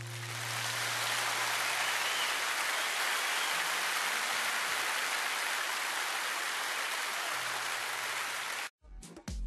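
Audience applauding at the end of a live song recording. It cuts off suddenly near the end, where the first beats of a dance track come in.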